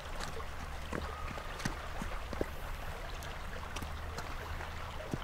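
Footsteps of a person and a horse's hooves on a gravel track: irregular crunching steps and clicks, over a steady low rumble.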